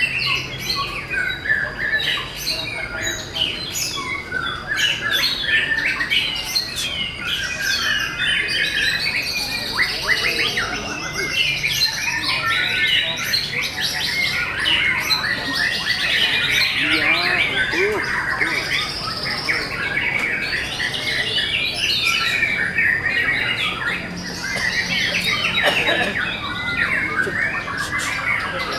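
Caged white-rumped shamas (murai batu) singing at full tilt: a dense, unbroken chorus of rapid overlapping whistles, trills and harsh notes from several birds at once.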